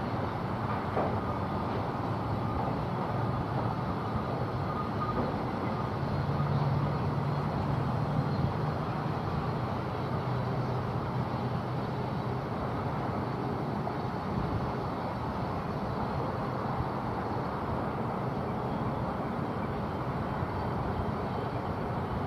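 Diesel-hauled freight train rolling past: a steady rumble of wheels on rail. A low engine drone swells about six seconds in and eases off a few seconds later.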